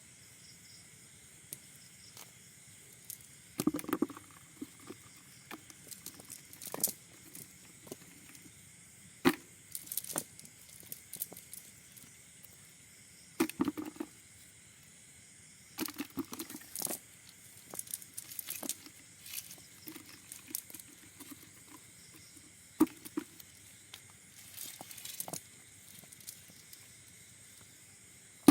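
Irregular clicks, rustles and light knocks of a cast net and its catch being handled, with occasional clinking like the net's metal sinkers.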